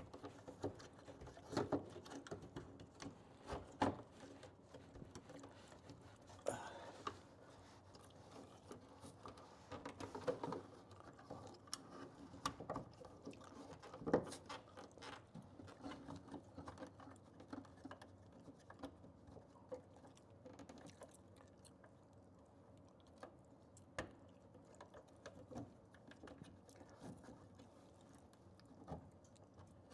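Faint, irregular clicks, taps and rustles of hands working a plastic old-work electrical box and its cable into a hole in drywall.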